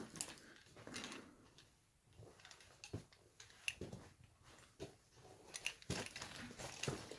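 Footsteps crunching and scraping irregularly on loose rock and rubble.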